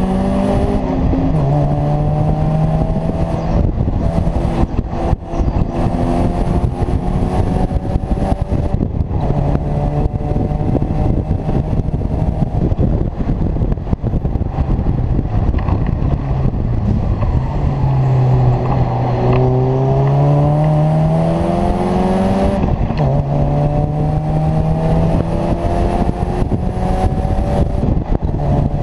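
Engine of a Seven-style open-cockpit sports car at speed, heard from inside the cockpit with heavy wind buffeting over it. The engine note climbs steadily in each gear and drops at each upshift, sinks low under braking a little past halfway, then rises in a long sweep back up through the gears.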